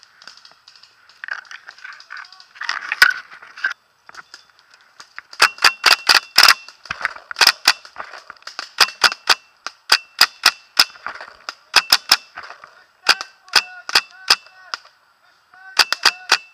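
Paintball marker firing: sharp pops in quick bursts of two to six shots, repeated every second or so from about five seconds in.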